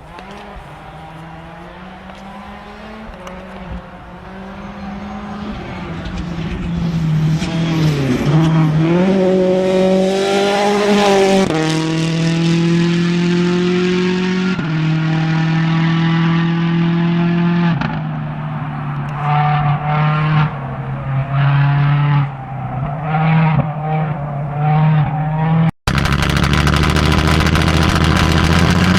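A rally car's engine approaching at full throttle, its pitch climbing and dropping back in steps through a few upshifts, then going on and off the throttle in short bursts as it slows. Near the end the sound cuts abruptly to another steady engine note.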